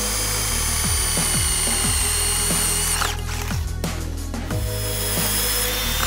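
Cordless drill boring a hole in a thin metal mounting plate: a steady high motor whine for about three seconds, a pause, then a second run starting about a second and a half later. Background electronic music with a steady beat plays underneath.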